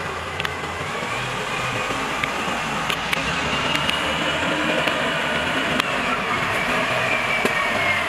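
Backhoe loader's diesel engine running steadily as the machine drives, with a faint high whine that slowly rises and falls.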